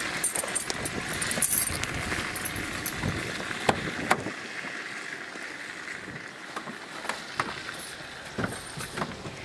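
Pickup truck door handled and swung open, with scattered clicks and knocks from the latch and gear, the sharpest click a little under four seconds in, over a steady outdoor hiss.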